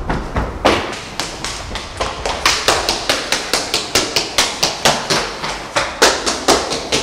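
Running footsteps, a quick even patter of several footfalls a second, growing louder about two and a half seconds in.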